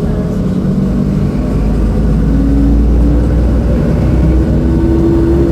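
Mercedes-Benz O-500U bus's OM-926LA six-cylinder diesel running under way with a heavy low rumble. A whining tone slowly rises in pitch and breaks off near the end, as the bus gathers speed through its Voith DIWA automatic gearbox.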